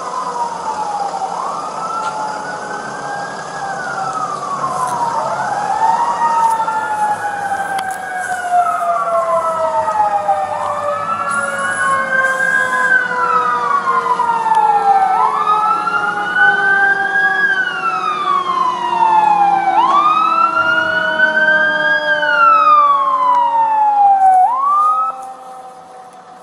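Fire engine siren wailing, its pitch rising and falling about every four and a half seconds, with a second siren tone sliding slowly downward underneath. It grows louder as the truck approaches, then cuts off about a second before the end.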